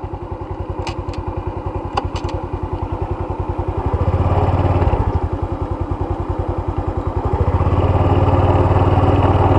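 Motorbike engine running and pulling away, its beat quickening as it picks up speed and growing louder about four seconds in and again near the end.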